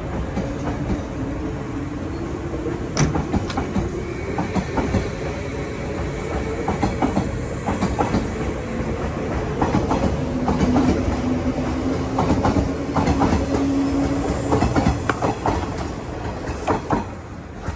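381-series limited-express electric train pulling out on the adjacent track with a steady rumble, its wheels clacking over the rail joints in a run of sharp clicks. The sound fades near the end.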